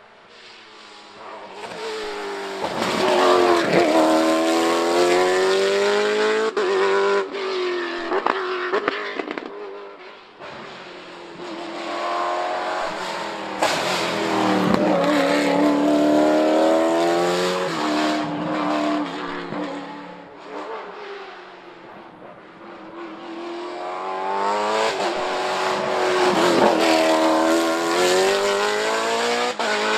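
Sports prototype race car's engine at high revs, racing past uphill, its pitch rising and falling through gear changes with sharp cracks at some shifts. It swells and fades three times: early on, in the middle and near the end.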